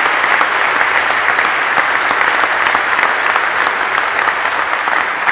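A crowd applauding, with many hands clapping steadily.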